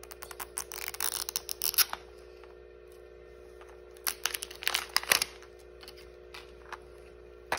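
Mighty Beanz packaging being pulled and torn at by hand, in two spells of crinkling and tearing, then one sharp click near the end.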